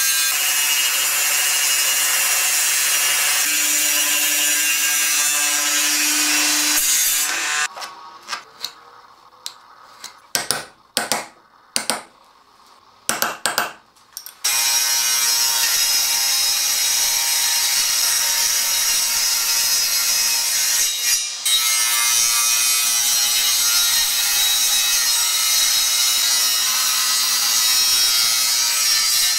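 Table saw ripping a wooden board, a steady loud cutting noise over the motor's hum. About halfway through, the cutting stops for several seconds, and a handful of short sharp knocks are heard. Then the table saw cuts wood again, steadily, until the end.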